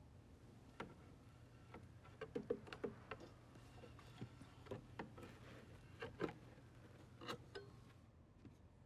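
A scatter of light, irregular clicks and knocks, a dozen or so spread over several seconds, over a steady low hum.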